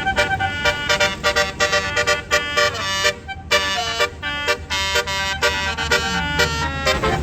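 Bus 'telolet basuri' musical horn playing a fast tune of short, bright notes, with a brief break about three seconds in.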